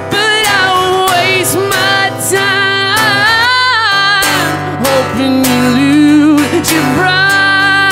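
Man singing long, held, sliding notes over a strummed acoustic guitar.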